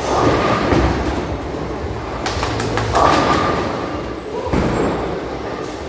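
Ten-pin bowling ball rolling down the lane with a low rumble, then crashing into the pins a little over two seconds in, with a quick clatter of falling pins.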